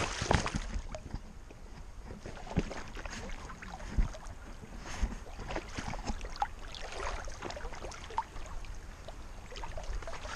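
English setter splashing and wading through a shallow creek, with irregular sloshing splashes around its legs, heard from a camera strapped to its back. The loudest splash is at the start.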